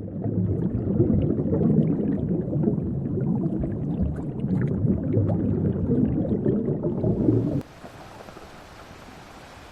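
The 'Julia' sound, a NOAA underwater hydrophone recording: a deep, rumbling groan with a crackly texture. It cuts off suddenly about seven and a half seconds in, leaving a steady hiss.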